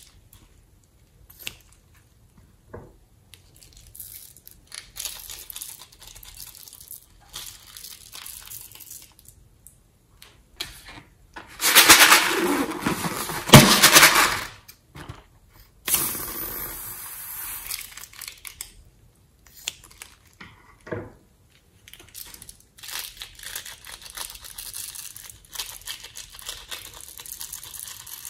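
Close-up handling of slime-filled rubber balloons over a glass bowl: the balloons are cut open and squeezed, and the rubber rubs and crinkles. There are two loud noisy stretches of about two seconds each, about 12 and 16 seconds in, among quieter crackling.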